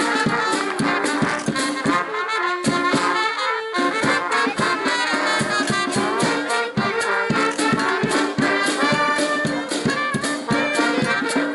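Brass band playing a tune over a steady drum beat; the drum drops out for about a second near the three-second mark, then comes back in.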